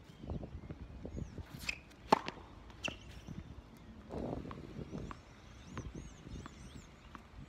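Tennis ball impacts on an outdoor hard court: one sharp knock about two seconds in, the loudest sound, then a few lighter taps as a ball is bounced before the next serve, over a low steady rumble.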